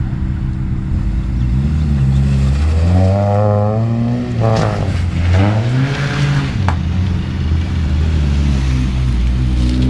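Car engine revving hard and easing off in a motorkhana run: the pitch climbs for a couple of seconds, drops sharply about four seconds in, climbs and falls again, settles to a steady low run, then starts rising again near the end. A single sharp click sounds partway through.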